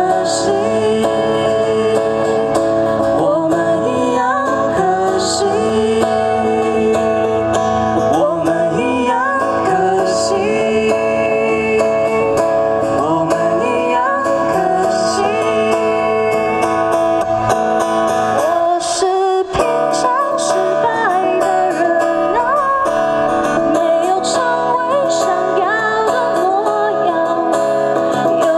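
A band playing a song live, with guitar prominent. It drops out for a moment about two-thirds of the way through, then comes back in.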